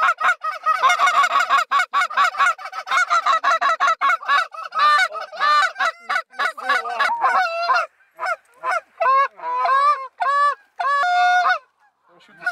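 DUX goose call blown by hand: a fast run of short clucks, then slower, separate honks, with one longer held note near the end.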